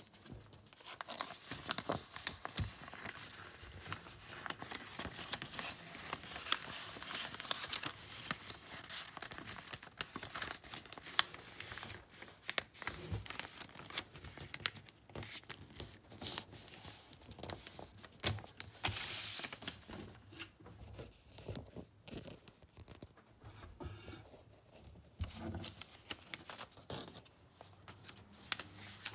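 A sheet of paper being folded by hand into an origami shirt: rustling and crinkling with many sharp crease clicks, busy for most of the time and sparser near the end.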